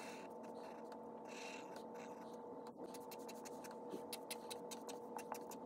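Fine-point Sharpie permanent marker drawing on paper: a few longer strokes in the first two seconds, then a quick run of short strokes in the second half, over a faint steady hum.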